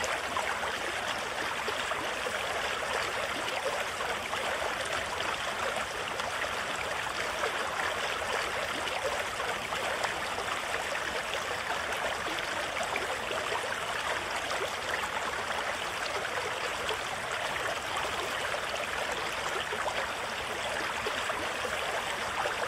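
A river rushing steadily through a shallow, rocky rapid: an even, unbroken roar of white water.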